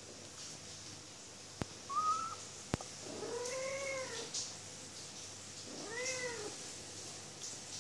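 Young tabby kitten meowing while eating dry kibble: a short rising chirp, then two drawn-out meows a couple of seconds apart, the first about a second long and the second shorter. Two sharp clicks come before the first meow.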